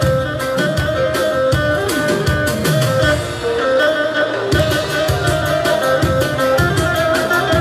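Instrumental passage of live Assyrian party music: a keyboard melody in guitar- and violin-like voices over a steady drum beat.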